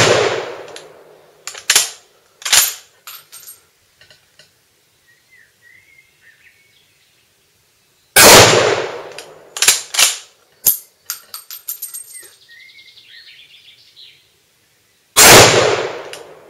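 Swiss K31 straight-pull rifle in 7.5x55 Swiss firing three shots about seven seconds apart: one at the start, one about eight seconds in and one near the end. Between shots come sharp clicks and a brief rattle as the straight-pull bolt is worked to chamber the next round.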